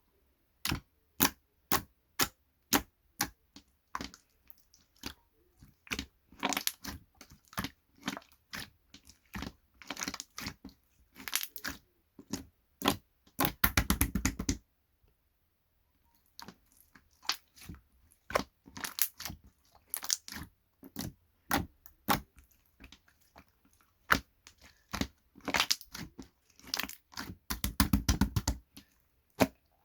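Close-up handling sounds: a long series of sharp clicks and crinkly crunches, with two longer rasping, tearing-like stretches, one about fourteen seconds in and one near the end, and a brief pause of about a second in between.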